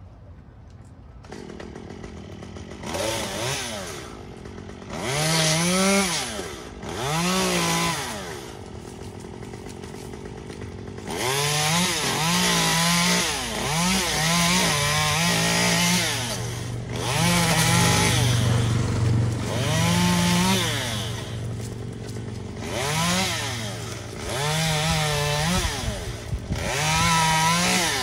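A two-stroke chainsaw running and revved up and down in about a dozen short bursts, its pitch rising and falling back each time. A low steady hum sits under the second half.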